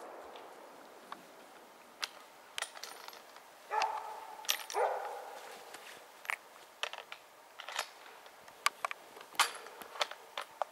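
The echo of a rifle shot dies away through the forest. It is followed by scattered sharp clicks and snaps, and two short barks from a grey Norwegian elkhound about four seconds in.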